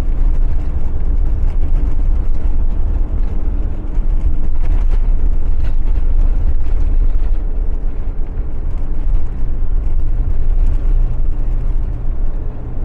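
Motorhome driving along a road, a steady low engine and road rumble heard from inside the cab.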